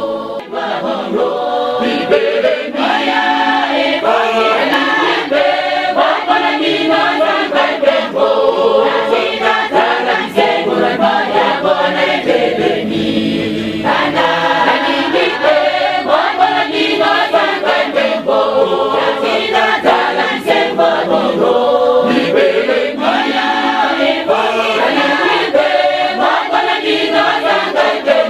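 Choir singing a Lingala gospel song of the Kimbanguist church, with little bass beneath the voices.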